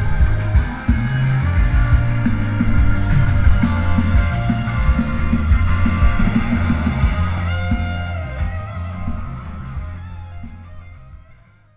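Rock music with guitars, bass and drums, fading out over the last few seconds.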